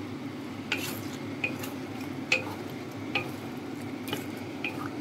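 Wooden spatula stirring fried pork ribs and vegetables in sweet and sour sauce in a wok. There are irregular knocks and scrapes of the spatula against the pan over a steady sizzle.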